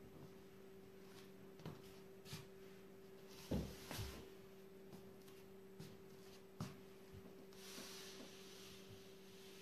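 Ipanema flip-flops stepping and shifting on a laminate floor: a few faint taps and a soft thump about three and a half seconds in, then a soft scuff near the end, over a steady faint hum.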